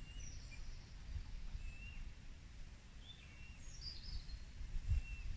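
Outdoor ambience: a low, uneven rumble of wind on the microphone, with a few faint, short bird chirps scattered through it.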